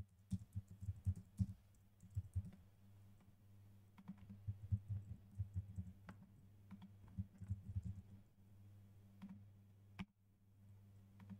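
Typing on a computer keyboard in irregular bursts of faint keystrokes, then a single sharp mouse click near the end, over a faint steady low hum.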